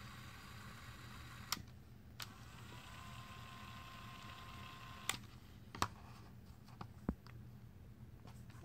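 Sony WM-F10 II cassette Walkman being handled, its buttons and switches clicking about five times, with a faint mechanical whir in between.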